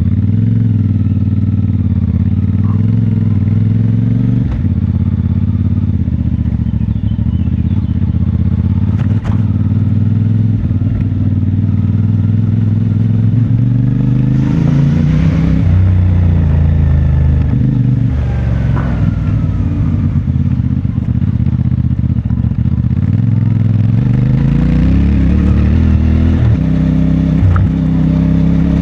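CFMoto 450MT's 449 cc parallel-twin engine running through its stock exhaust while being ridden, the revs rising and falling several times, with a few light clicks and knocks.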